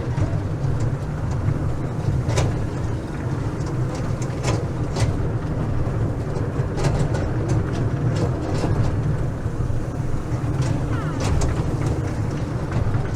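Small theme-park ride-on train running: a steady low rumble with a few sharp clacks now and then.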